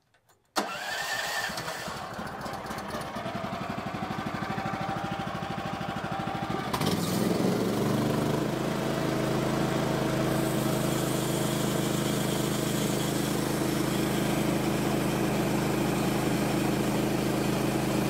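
Sawmill engine starting up: a sudden start, a rhythmic running sound that builds for several seconds, then a steady running note from about seven seconds in.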